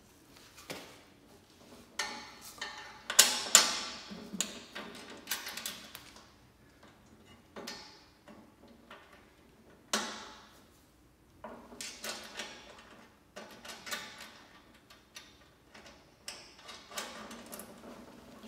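Screws, washers and nuts clicking and clattering against the sheet-metal cabinet of a bulk candy vending machine as its head is bolted to the spill tray from below. The sound is a run of irregular sharp clicks and short rattles, loudest a few seconds in, with one sharp click about ten seconds in.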